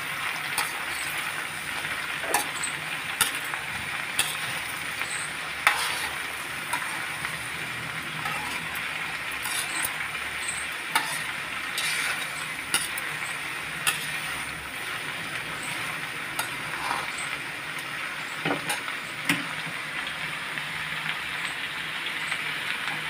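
Diced raw pumpkin sizzling in hot mustard oil in an iron kadhai while a metal spatula stirs it, with steady frying hiss and irregular scrapes and clinks of the spatula against the pan.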